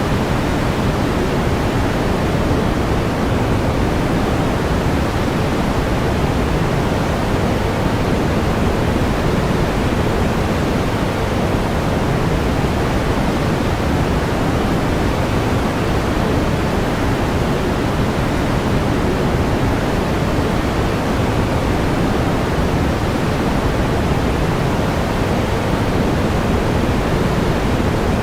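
Steady pink noise: an even, unchanging hiss, fuller in the low range, with no events or variation.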